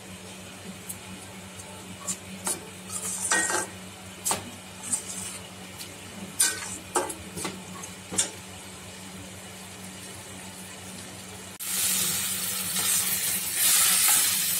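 Steel slotted spoon stirring vegetables and tomato paste in a stainless-steel kadai: scattered scrapes and clinks against the pan over a low steady hum. About twelve seconds in, loud sizzling of the mixture frying starts abruptly, with stirring scrapes over it.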